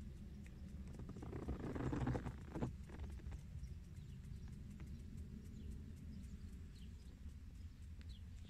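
Faint, steady low rumble of a scooter ride with wind noise, swelling into a louder rush about two seconds in, with scattered light clicks.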